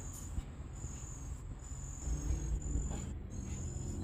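Insects chirping outdoors in short, high, thin trills that repeat every second or so, over a steady low rumble.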